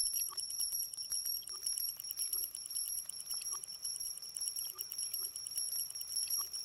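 A steady high-pitched ringing tone laid over fast, even ticking, about ten clicks a second: a designed sound effect.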